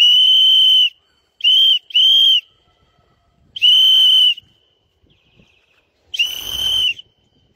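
Loud, shrill whistle at one steady high pitch, blown in five blasts: a long one at the start, two short ones just after a second in, then two longer ones about a second apart in the middle and near the end. It is a pigeon keeper whistling to his flock in flight.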